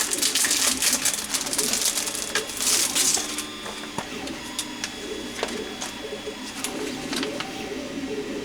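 Rustling of an instruction sheet being unfolded and handled, dense and hissy for about three seconds, then quieter handling with scattered clicks and taps.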